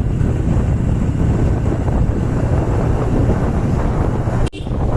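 Heavy wind buffeting the microphone over a low steady hum, with a brief dropout about four and a half seconds in.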